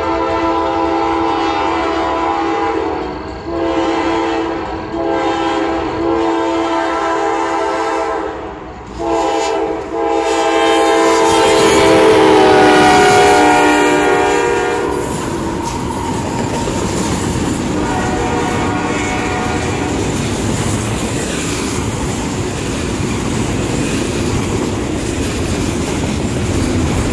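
Second-generation Nathan K5LA five-chime air horn on a CSX CW44AH locomotive blowing several blasts, the last held long and dropping in pitch as the locomotive passes close at speed. Then the steady rolling noise of a short train of double-stack container cars going by.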